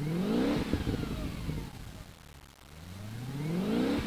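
Audi S4 engine revved twice in place through a MagnaFlow performance exhaust, each rev climbing in pitch and then falling back. A single short sharp crack comes just after the first rev peaks.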